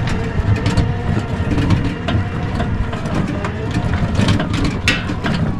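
Kuba GL 1800 MAX tricycle's motor running steadily under load as it climbs a rough dirt hill track, with a steady whine over a low rumble and frequent knocks and rattles from the bumps.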